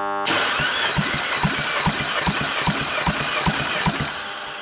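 Peugeot 1.6 THP turbocharged 16-valve four-cylinder engine being cranked over with a compression gauge in its third cylinder. It gives a steady whirring noise with a regular beat, about two and a half a second, that starts just after the beginning and stops near the end. This is a compression test, and this cylinder reads 12 kg/cm².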